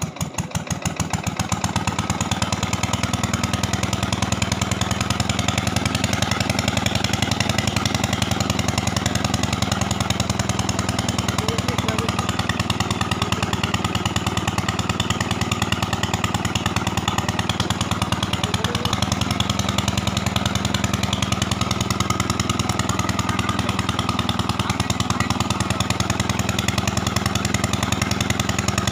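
A small engine catching and picking up speed, then running at a steady, rapid, even beat.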